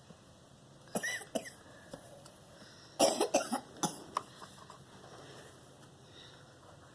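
A person coughing: one short cough about a second in, then a run of several coughs about three seconds in.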